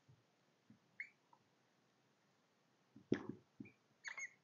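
Dry-erase marker writing on a whiteboard: a few short, faint strokes and squeaks, the loudest about three seconds in and a squeaky pair near the end.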